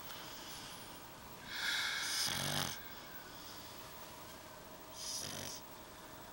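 Snoring from a sleeping pug and a man: a long raspy snore about two seconds in, with a deeper rumble under its end, and a shorter, softer snore about five seconds in.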